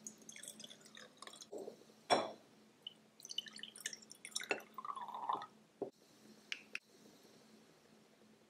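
Water poured from a plastic bottle into glass jam jars, trickling and dripping, with a few light knocks as the glass jars and small plastic pots are handled.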